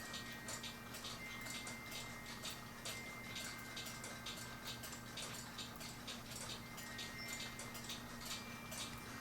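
Faint clock ticking, several quick ticks a second, over a low steady hum.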